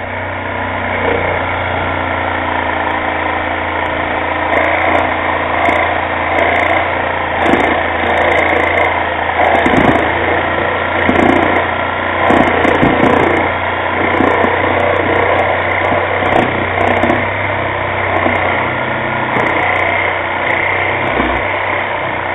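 Corded reciprocating saw running continuously as its blade cuts through the tire's sealed bead and the wheel rim beneath it. The cut gets louder and rougher in the middle.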